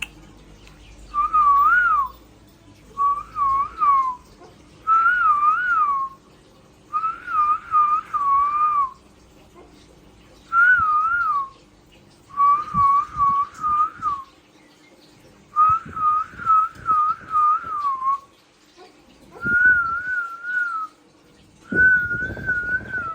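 Repeated warbling whistles: about nine short phrases of one to two seconds each, every one a clear tone wavering up and down, with short pauses between them; the last two are steadier and a little higher. A few soft low knocks come in the second half.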